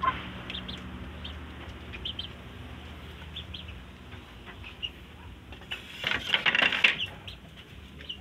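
Chickens in a bamboo coop giving short, high peeps and clucks scattered through, with a louder rustling burst for about a second, some six seconds in.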